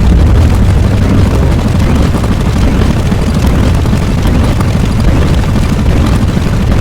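Loud, continuous rumbling roar of an explosion-type sound effect, deep and noisy, holding at a steady level without distinct separate blasts.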